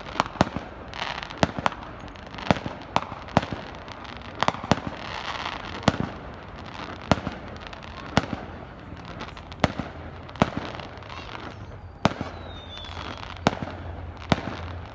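Consumer fireworks being set off: more than a dozen sharp bangs at irregular intervals, about one a second, over a steady background noise.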